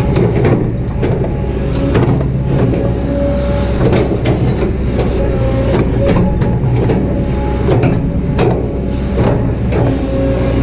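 Kobelco SK200-8 excavator's diesel engine running under working load, with a hydraulic whine that shifts in pitch as it comes and goes, and repeated short knocks and clatters as the machine works.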